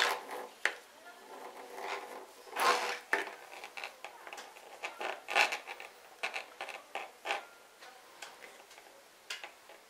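Hands working a knitted hat on metal circular knitting needles: irregular light clicks and taps of the needles mixed with rustling of the yarn and knitted fabric, with a longer rustle about three seconds in.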